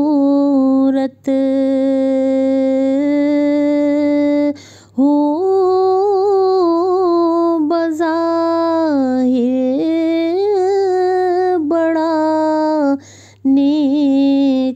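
A solo voice singing an Urdu devotional prayer song (a dua). It holds one long note for about four seconds, then moves into a wavering, ornamented melody, with short breaths between phrases.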